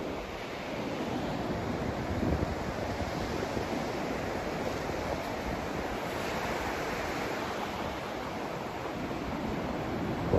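Steady white-noise sleep sound: an even, unbroken rush without tones or rhythm, swelling only slightly.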